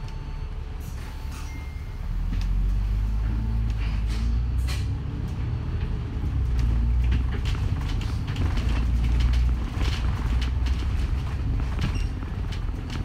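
Bus engine and drivetrain rumbling as the bus drives along, getting louder about two seconds in, with frequent short clicks and knocks over it.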